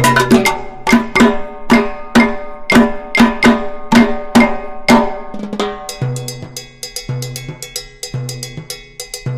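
Music with a steady drum and percussion beat and pitched notes; about six seconds in it shifts to a busier, quieter passage.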